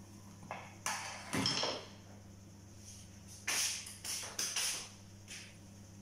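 Kitchen clatter: a handful of sharp knocks and clinks as a spoon and a glass pot lid are handled and set down on the counter, over a steady low hum.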